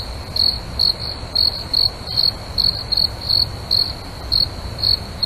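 Crickets chirping in short, evenly repeated high chirps, about two to three a second, over a faint steady low rumble.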